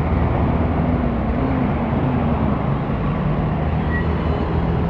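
Steady vehicle traffic noise: engines running with a low hum and a faint wavering engine tone.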